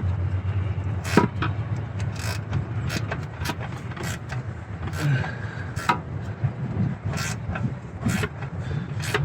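Ratchet snugging down the intake manifold bolts on a Nissan Titan V8, clicking about once a second over a steady low hum.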